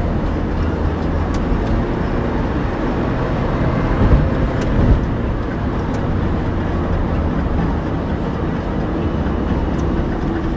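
Road noise inside a moving car's cabin: a steady low rumble of engine and tyres, with two brief low thumps about four and five seconds in.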